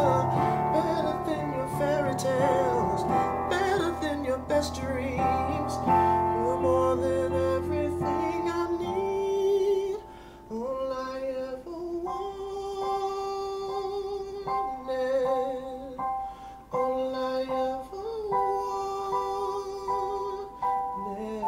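Electronic keyboard chords under wordless sung runs and held notes with vibrato. About ten seconds in the playing drops to softer, sparser chords with a few short held sung notes.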